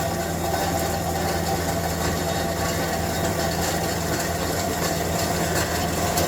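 A heavy machine's engine running steadily at a constant speed, with a low hum under a rattly mechanical noise.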